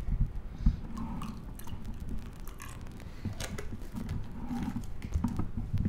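A glass liquor bottle being handled and its screw cap twisted off: scattered clicks and knocks of cap and glass, the loudest under a second in.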